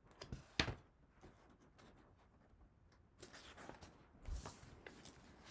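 Faint handling sounds of a picture book: a couple of light clicks, then a soft paper rustle as a page is turned.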